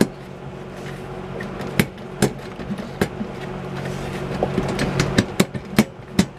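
A box fan blade is wiggled back and forth on its motor shaft to work it loose, giving irregular sharp clicks and knocks that come faster near the end.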